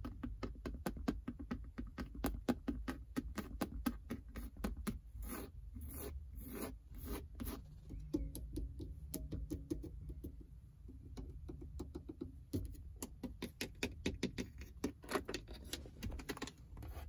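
Long fingernails tapping and scratching quickly on the textured plastic and leather interior trim of a Ford Mustang, in fast runs of many sharp little taps. The taps thin out to softer scratching for a few seconds in the middle.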